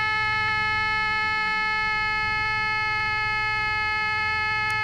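Panasonic R-111 AM transistor radio oscillating: a steady pitched howl from its speaker, with a few faint clicks.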